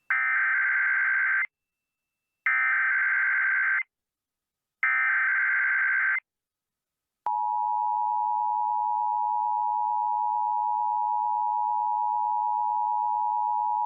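Emergency Alert System Required Monthly Test on AM radio. Three screeching bursts of digital SAME header data play, each about a second and a half long with short silences between them. About seven seconds in, the steady two-tone EAS attention signal starts and holds.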